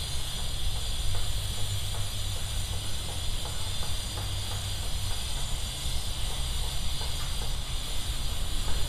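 Wind rumbling on a clip-on microphone outdoors, over a steady high hiss.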